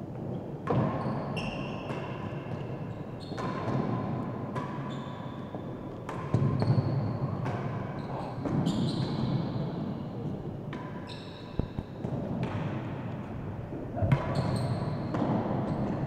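Real tennis rally: the hard ball is struck by rackets and bounces around the court, giving sharp knocks at irregular intervals, roughly one a second, many with a brief ringing tone after them.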